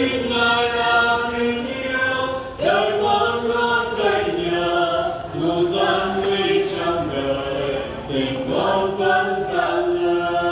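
A small mixed group of men and women singing unaccompanied, in phrases of long held notes with short breaks between them.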